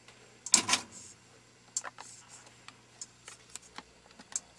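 Close handling noise: a loud rustle and knock about half a second in, then scattered light clicks and ticks over a faint steady hum.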